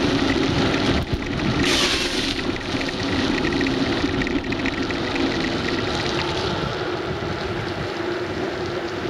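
Bicycle tyres rolling fast on a wet road, with a steady rush of wind. About two seconds in comes a brief, brighter hiss of spray as the front wheel cuts through standing water.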